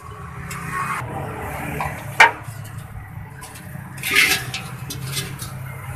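Cartridge-type oil filter housing being unscrewed by hand from under the engine while hot oil drains out, with metal rubbing and clinking over a steady low hum. There is one sharp clack about two seconds in and a short hiss about four seconds in.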